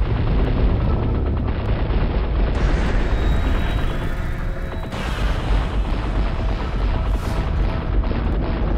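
Action soundtrack: music under a dense, continuous layer of booming explosion and gunfire sound effects with a heavy low end.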